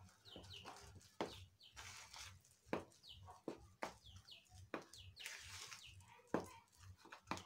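Hands squeezing and kneading a wet flour, egg and milk mixture in a bowl, with soft knocks and squelches now and then. Short falling bird chirps come again and again behind it.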